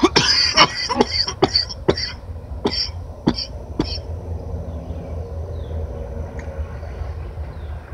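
A man coughing hard, about nine coughs in the first four seconds, from a heavy lungful of cigar smoke. A steady low rumble runs underneath.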